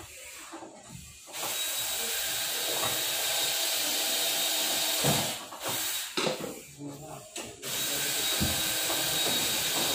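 Cordless power drill running in steady bursts: one run of nearly four seconds, a few short spurts, then another run of about two seconds near the end.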